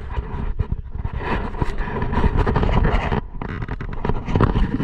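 River water splashing and sloshing as a brown trout is handled in a landing net and lowered back into the current, with many short splashes over a steady low rumble.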